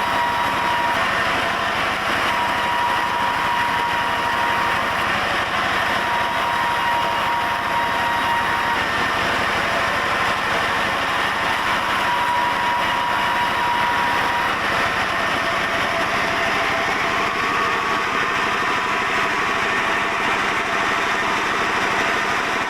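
Sawmill saw running steadily while cutting a very dense mahogany log, the machine working under heavy load. A whining tone comes and goes several times over the continuous noise of the machine.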